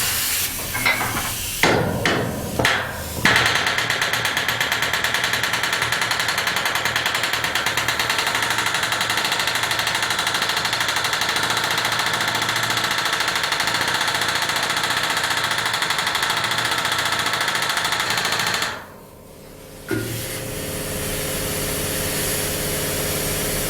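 Pneumatic rivet gun hammering the end of a boiler stay bolt in a steam locomotive firebox, mushrooming the metal against the sheet so the joint seals against water. It fires in a few short bursts, then a long unbroken run of rapid blows, stops briefly near the end, and starts again.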